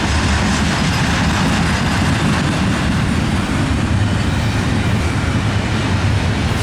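A long Norfolk Southern intermodal train of double-stack container cars rolling past on the main line: steel wheels on rail make a loud, steady rumble, strongest low down, with no break.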